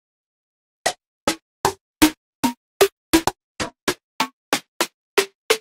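Snare sounds from the Nexus 4 synth's snare preset, played one note at a time on the keyboard. About fifteen short, sharp hits, roughly three a second, each at a different pitch.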